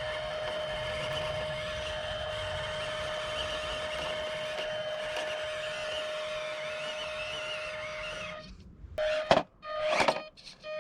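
Electric motor and gearbox of an FMS Toyota Hilux RC crawler truck whining steadily under throttle, cutting out about eight seconds in, followed by a few sharp knocks, the loudest near the end.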